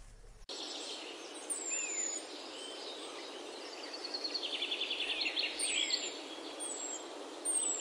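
Small birds chirping over a steady background hiss: several short, high, falling chirps and a brief rapid trill near the middle.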